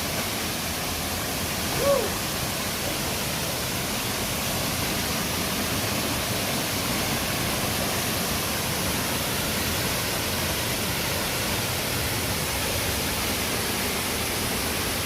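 Waterfall rushing: a steady hiss of falling water, with one short call about two seconds in.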